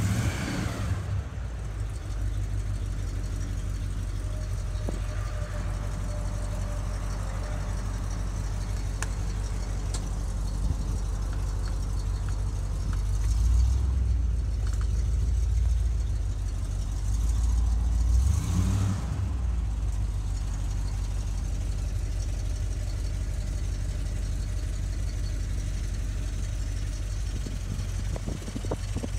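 1969 Cadillac DeVille's power convertible top running as it is raised and closed, its pump motor making a low, steady hum, with a couple of louder stretches about halfway through.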